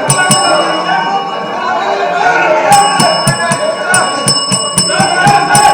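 Many legislators shouting over one another in an assembly uproar. From about three seconds in, an electric bell rings continuously over the shouting, the chair's call to order.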